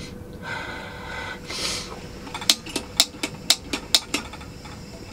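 A tearful sniff and shaky breathing. About halfway through comes a run of about eight sharp clicks, roughly four a second, from the piezo igniter of a small portable gas burner being clicked to light it.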